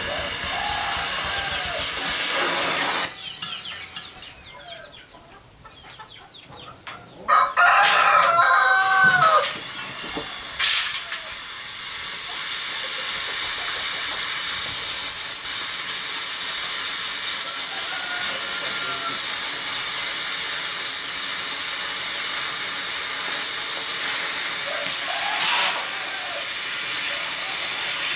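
LPG cutting torch hissing steadily on an iron pipe. The hiss drops out for about four seconds and then comes back. A rooster crows loudly about seven seconds in, with shorter calls near the start and near the end.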